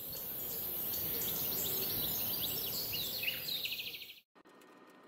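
Birds chirping and trilling over a steady outdoor ambience with a constant high hiss. It fades in and cuts off abruptly a little over four seconds in.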